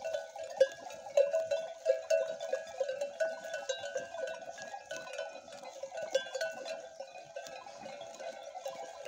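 Many livestock bells on a flock of sheep and goats clanking and tinkling continuously and unevenly as the animals move and graze.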